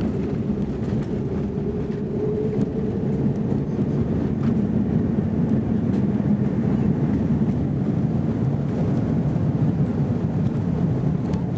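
Airbus A330-200 landing roll-out heard from inside the cabin: a steady low roar of the engines in reverse thrust together with the rumble of the aircraft rolling down the runway.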